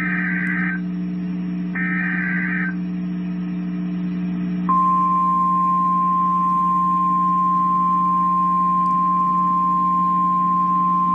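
Weather-radio emergency alert: two short bursts of warbling digital SAME header data, then, about four and a half seconds in, the steady 1050 Hz warning alarm tone begins and holds. This announces a new warning. A steady low hum from the receiver runs underneath.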